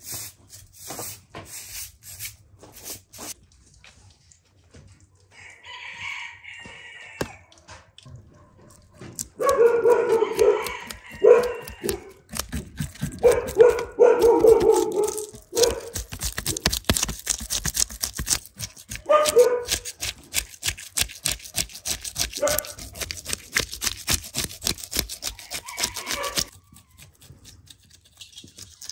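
A knife scraping the scales off a large grass carp on a wooden board: a fast, dense run of scraping clicks that fills the second half and stops suddenly near the end. Earlier, several loud animal calls from domestic animals sound over it.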